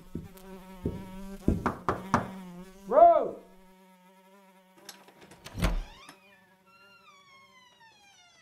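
A steady insect-like buzz, like a large wasp or fly, with several sharp knocks and a loud rising-then-falling squeal about three seconds in. Near the end a long falling creak comes as the door swings open.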